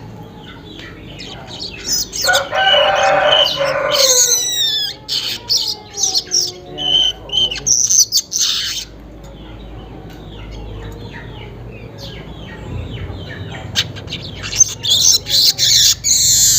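Weaver birds (burung manyar) chirping and chattering in bursts: a run of quick chirps and fast chatter in the first half, a quieter stretch in the middle, then a loud bout of chatter near the end.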